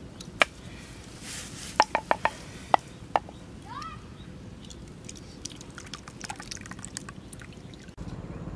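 Several sharp knocks against the mortar, then thick chili sauce pouring from the mortar into a coconut-shell bowl with small drips and splats.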